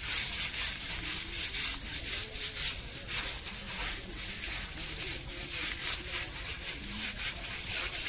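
Hose water spraying and splashing over an elephant's hide and the wet pavement during its bath, with irregular scrubbing strokes against the skin.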